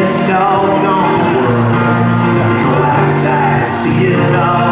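Two acoustic guitars strummed together in a live performance of a children's song, with a man singing.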